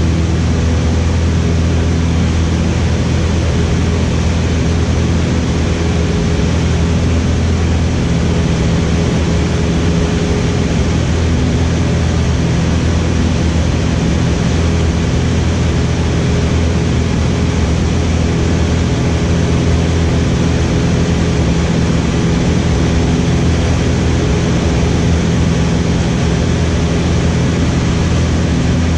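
Cessna 152's four-cylinder Lycoming O-235 engine and propeller in cruise flight, a steady drone as heard inside the small cockpit.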